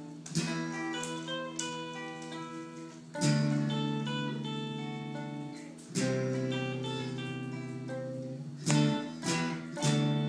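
Acoustic guitar strumming worship chords. A chord is struck roughly every three seconds and left to ring out, and near the end there are three quicker strums.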